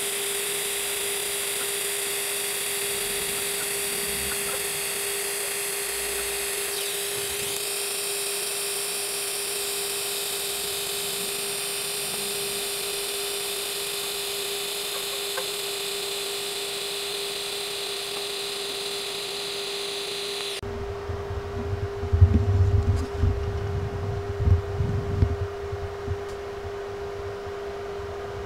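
TIG welding arc hissing steadily over a constant hum, cutting off suddenly about two-thirds of the way through as the weld ends. Low knocks and rumbles of handling follow.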